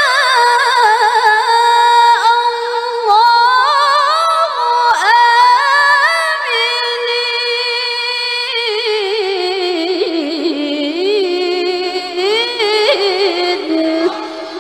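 A woman's voice reciting in the melodic Qur'anic tilawah style through a microphone: one long, high, ornamented line full of rapid trills. Its pitch steps down lower in the second half.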